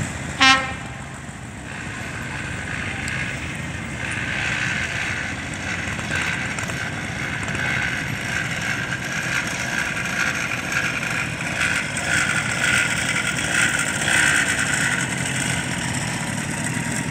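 Cars driving past one after another: engines running and tyre noise rising and falling as each passes. About half a second in there is a short, loud tonal blip.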